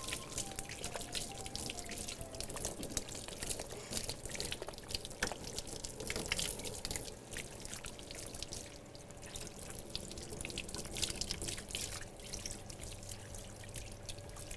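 Handheld shower sprayer rinsing a wet dog's coat, water running, splashing and dripping into a stainless-steel tub.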